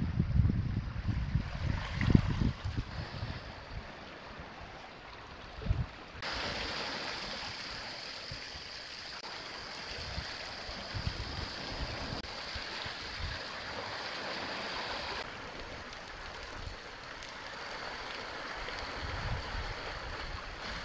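Sea water washing against a rocky cobble shore, a steady hiss of surf, with wind buffeting the microphone in the first couple of seconds and now and then after. The hiss changes abruptly about six seconds in, becoming brighter, and changes back about fifteen seconds in.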